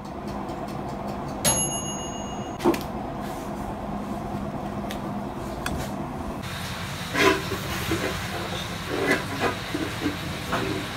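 Kitchenware being handled against a steady hiss: a bright metallic ding about a second and a half in, then a click, and later a run of light knocks and clatters.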